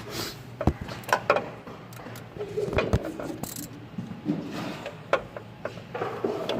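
Irregular metallic clicks and knocks of a socket and ratchet being fitted onto and worked at a bolt on a tractor's PTO valve.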